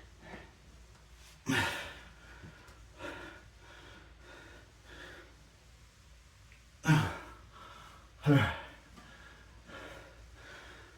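A man grunting and exhaling hard with effort while straining through the last reps of bodyweight dips, with heavy breathing between. Three loud grunts with falling pitch: one about a second and a half in, then two close together near the end.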